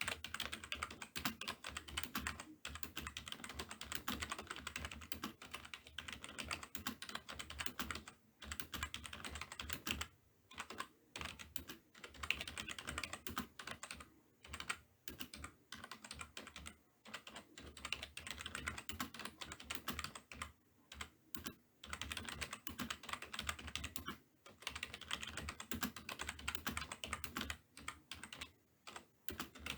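Fast typing on a computer keyboard: rapid runs of key clicks broken by brief pauses every few seconds.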